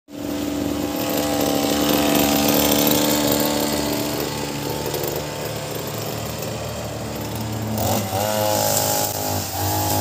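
Two-stroke engine of a 26cc Ogawa multi-tool brush cutter running steadily, its pitch shifting as it is revved about eight seconds in.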